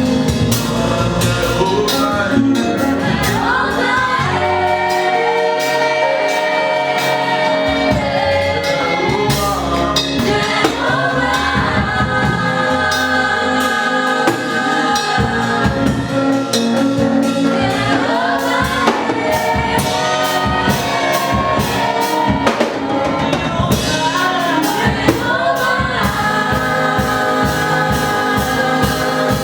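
Gospel music: a choir singing sustained phrases over a drum kit and band.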